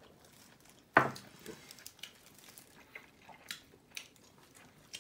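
Tableware and eating sounds: one sharp knock about a second in, then scattered small clicks and taps of cutlery and dishes.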